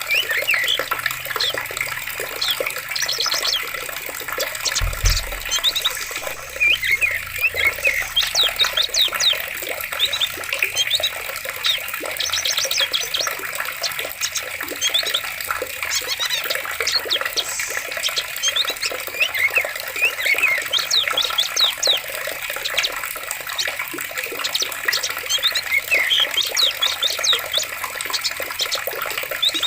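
Steady running water with many small birds chirping over it throughout, and one brief low thump about five seconds in.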